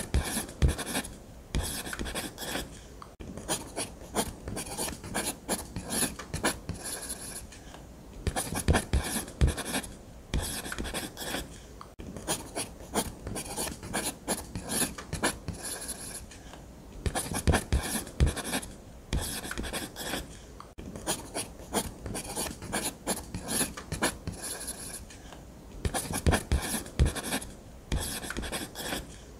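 Ballpoint pen scratching across paper in quick freehand drawing strokes, in runs of a few seconds broken by short pauses.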